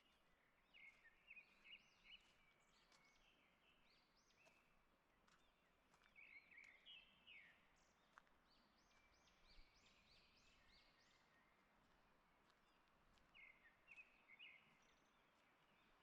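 Faint songbird song: four short runs of high, chirping phrases, each a second or two long, over a faint steady hiss.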